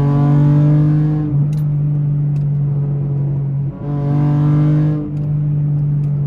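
V6 car engine and aftermarket header exhaust accelerating: the note climbs in pitch and drops back twice, about a second in and again about five seconds in, as at upshifts.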